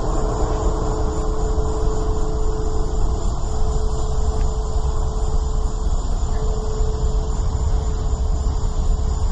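Steady low rumble with a single droning tone held over it, one of the unexplained 'strange sounds' heard from the sky.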